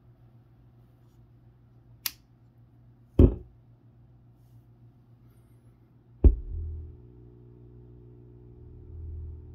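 Mordaunt-Short MS907-W subwoofer: a sharp switch click, then two low thumps as its amplifier powers up. After that it gives a steady mains hum with a buzzy edge, which grows louder near the end as the line-input connector is handled. The hum is the sign of a grounding fault, a ground loop.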